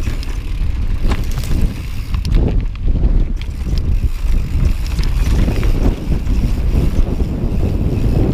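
Wind buffeting the microphone with a steady low rumble, over a 2013 Santa Cruz Tallboy LTc mountain bike rolling down a rocky dirt trail, its tyres and frame giving off scattered clicks and rattles.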